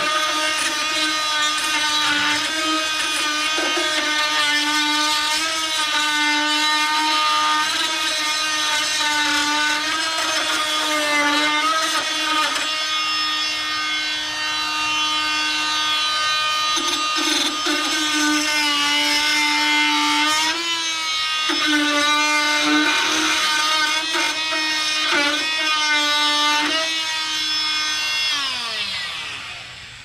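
Rockwell Sonicrafter oscillating multi-tool running with a wood-and-metal blade, scraping Bondo and paint off a steel car body panel: a steady, high-pitched buzz whose pitch wavers and dips as the blade bites. Near the end it is switched off and winds down.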